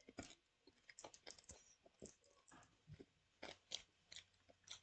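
Faint chewing of candy-shelled caramel M&Ms: a scatter of quiet, irregular crunches and small mouth clicks.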